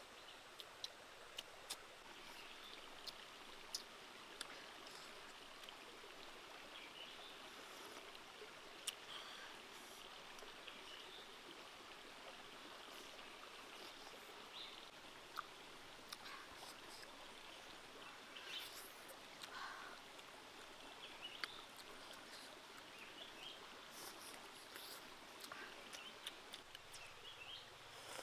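Faint steady rush of a shallow rocky stream, with scattered short clicks and smacks from eating.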